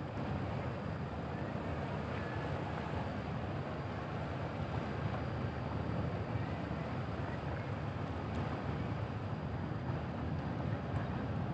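Steady low rumble of the passenger ship KM Kelud's engines and propeller wash as it manoeuvres away from the pier, mixed with wind on the microphone.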